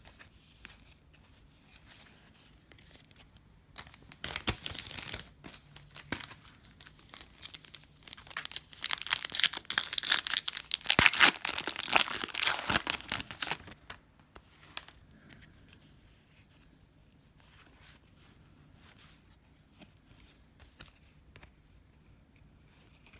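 Plastic trading-card pack wrapper being torn open and crinkled by hand. There is a short spell of tearing about four seconds in, then a longer, louder stretch of tearing and crinkling from about eight to fourteen seconds, with faint handling clicks in between and afterwards.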